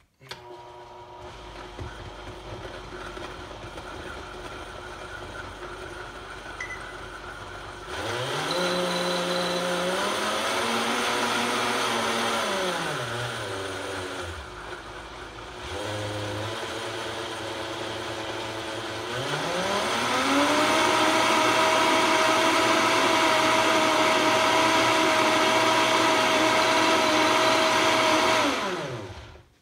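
Vitamix S50 blender blending thick pancake batter, with its speed dial turned by hand. It starts at low speed, ramps up about eight seconds in, drops back down, then climbs to high speed near twenty seconds and runs steadily before winding down and stopping.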